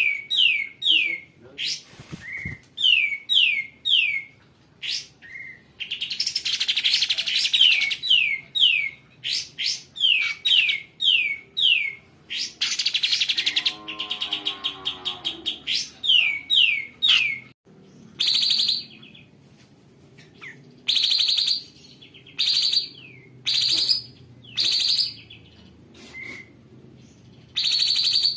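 Kapas tembak bulbul calling in long runs of sharp down-slurred notes, about three a second. The runs alternate with harsh, rough rasping bursts, the coarse 'beset' calls.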